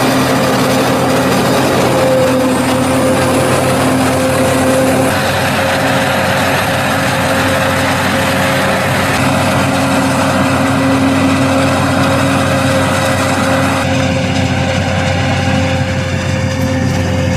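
New Holland FR700 self-propelled forage harvester running under load while chopping maize: a steady, loud machine drone with a constant low hum. The mix shifts slightly about five seconds in and again near the end.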